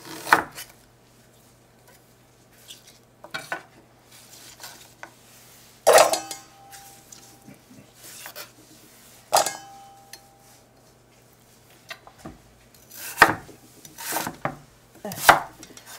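Kitchen knife cutting Korean radish on a wooden cutting board: a handful of separate knocks of the blade through the radish onto the board, spaced seconds apart, coming closer together near the end. Two louder clanks about six and nine seconds in ring briefly, like metal kitchenware being knocked or set down.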